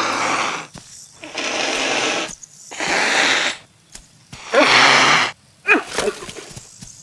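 Cheetah hissing in threat at an approaching spotted hyena: four loud breathy hisses about a second apart, followed near the end by a few short high-pitched cries.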